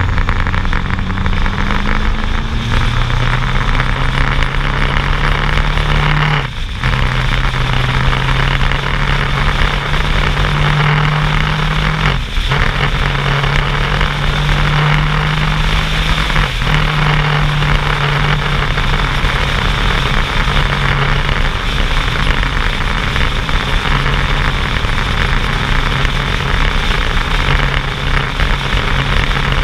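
Motorcycle engine running steadily at road speed, heard from on board with heavy wind rush over the microphone. The engine note rises near the start and dips briefly three times.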